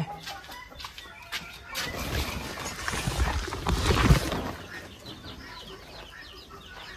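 A hanging curtain sheet rustling as it is brushed aside and rubs against the camera, loudest about halfway through. Near the end, chicks peep faintly.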